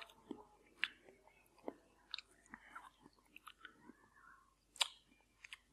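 Soft, quiet lip smacks and tongue clicks of someone tasting the milk-flavoured powder on a baked banana chip, with a sharper click near the end.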